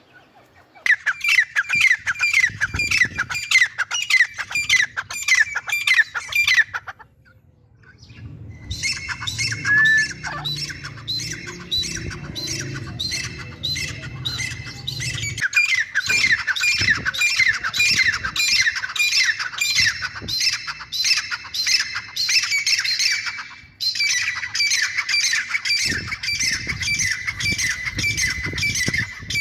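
Gray francolins calling: a long run of squeaky, sharply repeated notes, about three a second. The calls break off briefly about seven seconds in, then resume and carry on with only a short pause near the end.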